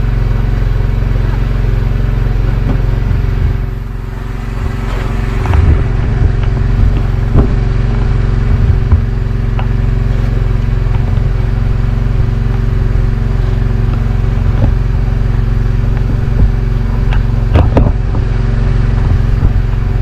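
An engine on an outrigger fishing boat runs at a steady drone, with scattered knocks and clatter of gear handled on the boats.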